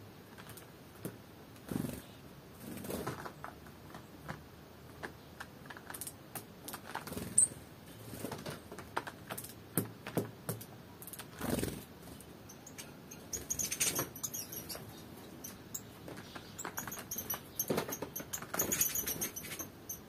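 Small birds, a tit and a Eurasian nuthatch, pecking and scratching at seeds on a cloth-covered board: a string of light, irregular taps and scrapes from beaks and feet, with one sharper click about seven seconds in.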